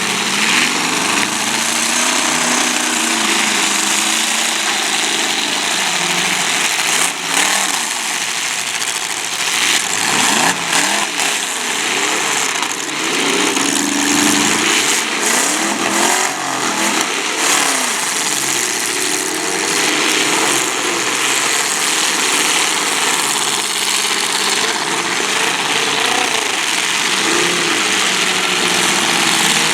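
Several demolition derby cars' engines running and revving at once, their pitches rising and falling over one another, with a few sharp bangs.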